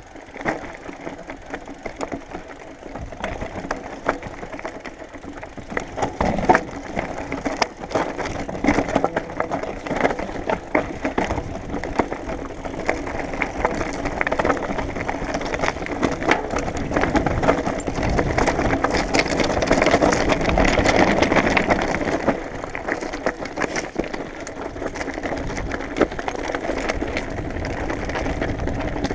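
Mountain bike rolling fast down a loose rocky trail: tyres crunching over rock and gravel, with constant rattling and knocking from the bike as it takes the bumps, heard close up from a camera mounted on the bike or rider. It gets louder for a few seconds past the middle.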